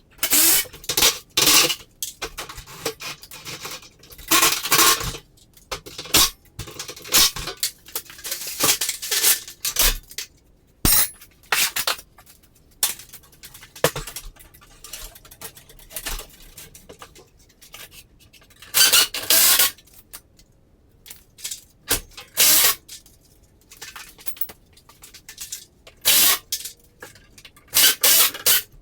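Metal garage door hardware and tools clanking and clinking in irregular sharp bursts.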